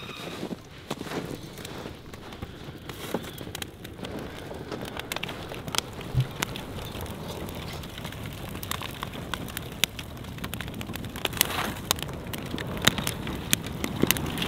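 Cardboard box smoker burning in tall flames, crackling with many sharp pops over a steady rush, the pops coming thicker in the second half.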